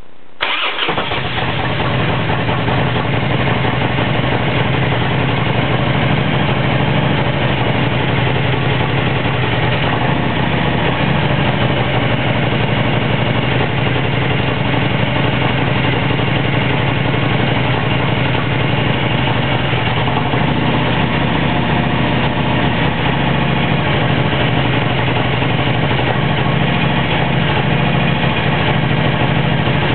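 Harley-Davidson Road King's V-twin engine catching about half a second in and then idling steadily, started after three weeks standing on a battery maintainer.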